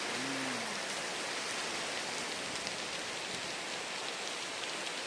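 Heavy tropical downpour: a steady, dense hiss of rain with faint ticks of individual drops.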